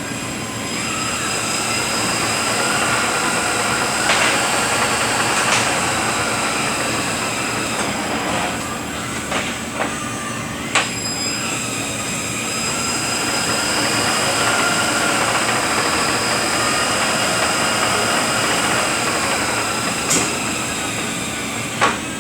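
Rebuilt Eaton Fuller RTO-16710B ten-speed truck transmission running on a dyno test stand: a steady gear whine whose pitch slowly rises and falls, with several sharp clacks scattered through it.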